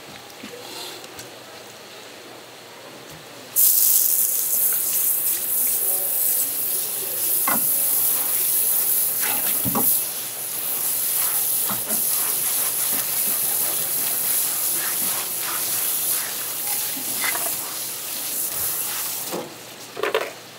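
Water spraying hard, a loud steady hiss that starts suddenly a few seconds in and stops shortly before the end, with a few faint knocks under it.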